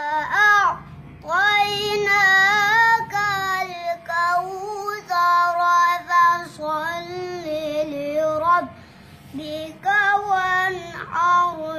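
A young boy chanting Qur'an recitation in a high, clear voice, holding long notes with wavering melodic ornaments. He pauses for breath about a second in and again near the nine-second mark.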